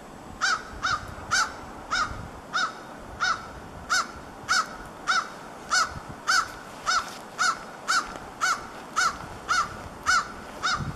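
A bird calling over and over in an even series of short single notes, about one and a half a second.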